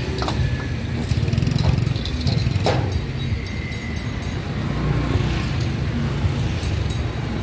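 Street traffic: engines running close by as a steady low rumble, with scattered clicks and clatter.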